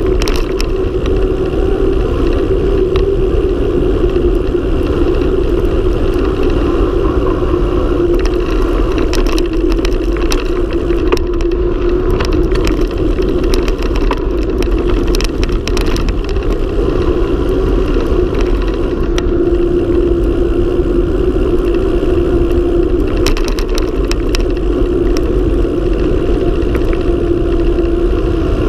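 Mountain bike descending fast on asphalt: a steady rush of wind on the microphone over the hum of the tyres on the road, with scattered clicks and knocks from bumps in the surface.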